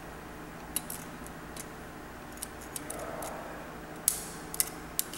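Light metallic clicks and taps from a steel feeler gauge being worked against a straight edge laid across an engine block's main bearing saddles, checking main bore alignment. The clicks come irregularly, the sharpest about four seconds in and two more just after.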